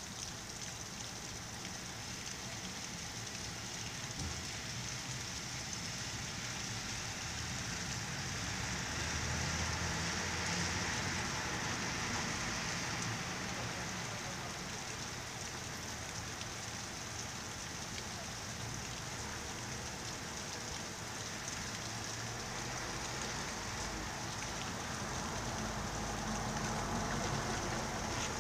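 Rain falling steadily, an even hiss that grows louder about ten seconds in, eases off, and swells again near the end.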